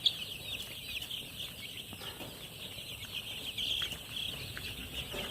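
A flock of five-day-old chicks peeping continuously, many short high cheeps overlapping.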